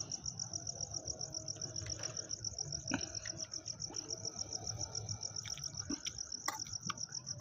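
Crickets chirping in a steady, fast, even pulsing trill, with a few faint clicks.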